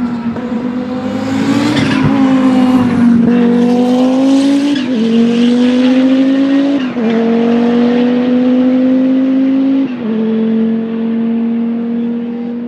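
Group C prototype race car accelerating hard through the gears: the engine note climbs, then drops at each of four upshifts. After the last shift the note holds steady and fades toward the end.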